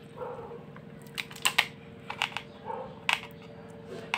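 Short sharp clicks of an ASG Dan Wesson 715 airsoft revolver's metal parts being handled: a quick cluster of clicks about a second in, a pair just after two seconds, another near three seconds, and the loudest click at the end.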